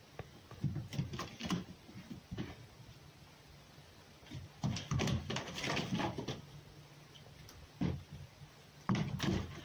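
A red fox playing with a tennis ball on a straw-and-dirt floor: irregular bursts of scuffling and soft knocks as it paws and pounces at the ball.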